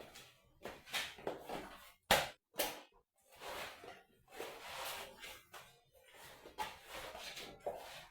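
Irregular knocks and rustling handling noises, with one sharp knock about two seconds in.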